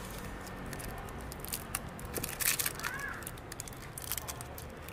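Foil candy wrapper crinkling in the fingers as a lollipop is unwrapped: short, irregular crackles, with a denser flurry about halfway through.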